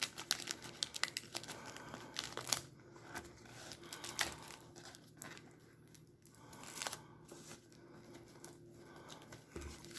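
Plastic shrink wrap on a trading card box crinkling and crackling in scattered short bursts as it is picked at and peeled off.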